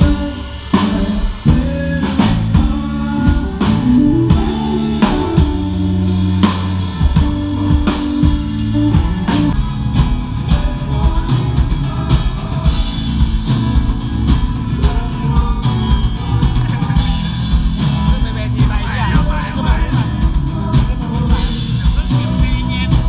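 Live rock band playing: drum kit, bass and guitars. The drums move from scattered hits and held bass notes into a steady fast beat about ten seconds in.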